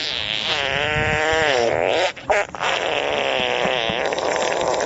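Wet fart sound effect: two long, wavering blasts. The first breaks off about two seconds in and the second starts half a second later.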